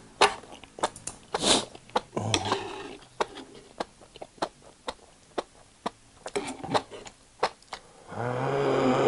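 Close-miked eating of enoki mushrooms in a fiery chilli sauce: many short wet mouth clicks and smacks of chewing, a sharp hissing breath about a second and a half in, and a drawn-out voiced groan from the spicy heat near the end.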